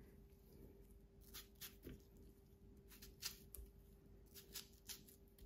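Near silence with a scattering of faint short clicks: a knife cutting through pieces of watermelon held in gloved hands.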